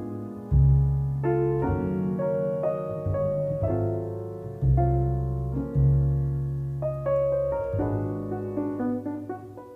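Jazz piano playing a slow ballad: chords changing every second or so over deep, sustained low notes.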